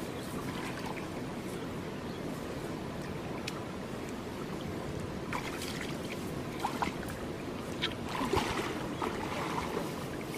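A steady rushing hiss, with scattered light splashes and rustles as hands pull wet mud and dry grass out of a flooded rice-field ditch, more frequent in the second half.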